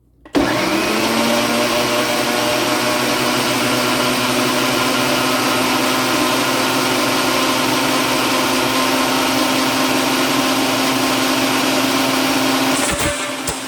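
Electric countertop blender running, chopping half a red onion in a little water: it starts suddenly, spins up in a moment, runs steadily with a motor whine, then cuts off near the end.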